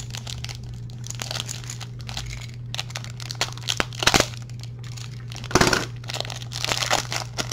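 Plastic wrap around a stack of trading cards crinkling and tearing as it is opened, with sharp crackles about four and five and a half seconds in, over a steady low hum.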